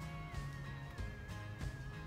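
Background music: guitar with a steady beat, under a held melody line that glides slightly in pitch.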